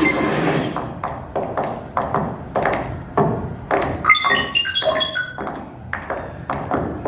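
Sound-effect track of a short stop-motion animation played in a hall: a string of taps and thumps about twice a second, timed to the on-screen movement, with a quick run of high pinging notes about four seconds in.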